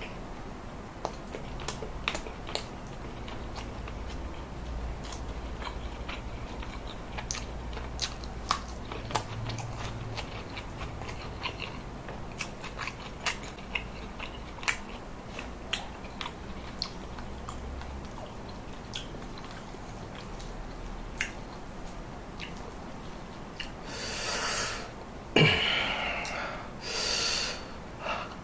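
Close-miked chewing and biting of a meal of grilled chicken, rice and raw vegetables, with many small wet clicks and crunches. Near the end come a few louder breathy rushes.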